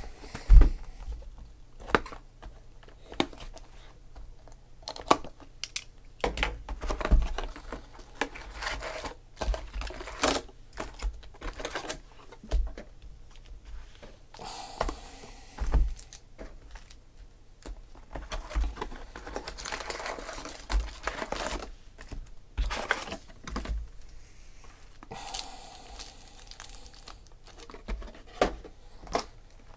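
Foil-wrapped baseball card packs and their boxes being handled: wrappers crinkling and rustling, with frequent short knocks and taps as packs are shuffled and set down on the table.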